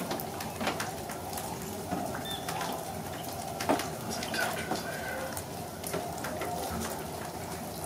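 A distant flock of waterfowl, swans among them, calling in a steady overlapping chorus across the marsh, with a few brief higher notes. Many light clicks and ticks sound throughout.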